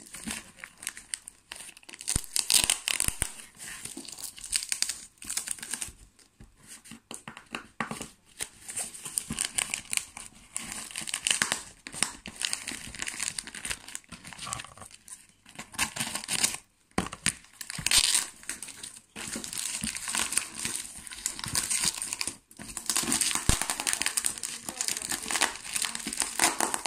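Paper parcel packaging being crumpled and torn by hand, in irregular rustling bursts with short pauses between them.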